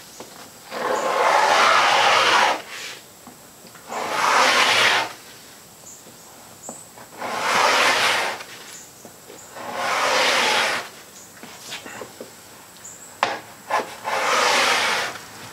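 Five long scraping strokes of a hand tool dragged across an oak tabletop, lifting off old finish softened by chemical stripper. Two sharp clicks come just before the last stroke.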